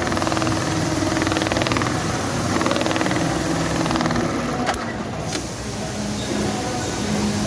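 RAMBO RM-342CPV cap visor stitching machines running, needles going in fast stretches of stitching over a steady machine hum. About five seconds in the stitching drops away briefly, with two sharp clicks, then resumes.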